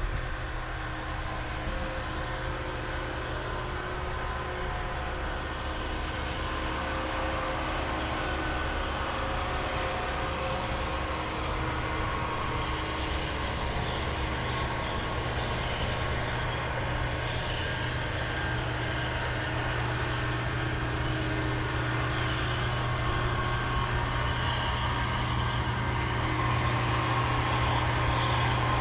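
Combine harvester running steadily while harvesting soybeans, a low machine hum under a spread of mechanical noise, slowly growing louder.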